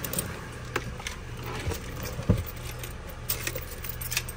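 Small clicks and rattles of things being handled inside a car, with one dull thump about two seconds in, over a steady low hum.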